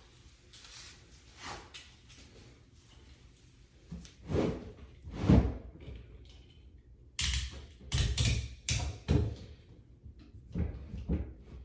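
Knocks and thuds of flat-pack furniture parts being handled during assembly, in uneven clusters, loudest a little after five seconds and in a quick run of knocks from about seven to nine seconds in.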